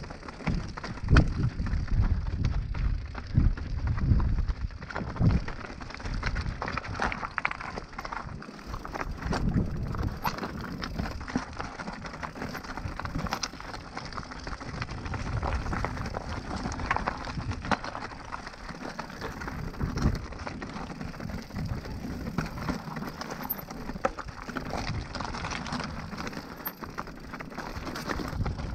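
Mountain bike riding over a rough, stony trail: tyres crunching on loose gravel and rock, with constant small clattering and knocks from the bike over the bumps. A heavier low rumble runs through the first few seconds.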